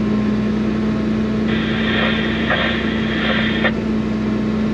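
Bell 4206D tractor's diesel engine running steadily, heard inside the cab, as it pulls a tile plow slowly into the ground. A high whine joins for about two seconds in the middle.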